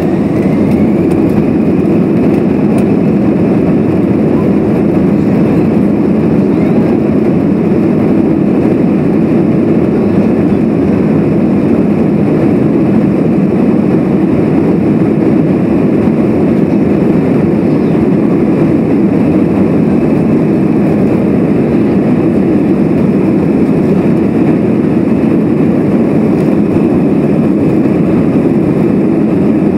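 Airliner jet engines heard from inside the cabin during the takeoff roll: a faint rising whine as they spool up right at the start, then a loud, steady rushing drone of engine thrust and runway rolling noise.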